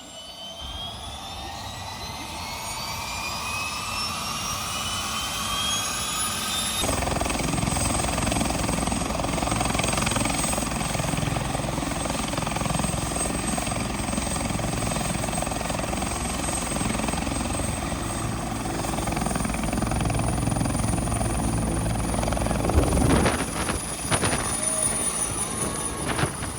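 Bell UH-1 Huey helicopter's turbine spooling up, a rising whine over the first several seconds. It then runs at full power with the rotor churning, and its high whine steps up a little later on.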